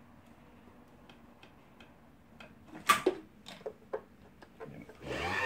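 Light clicks and taps as the NCC Sweety sewing machine's bobbin and bobbin winder are set up by hand, with one sharper click about three seconds in. Near the end the machine's motor starts up and runs steadily, driving the bobbin winder.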